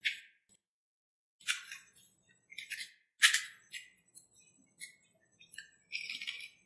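Close-miked eating: a few sharp crunching bites and chewing of fried snack food, then a quicker run of wetter chewing and mouth sounds near the end.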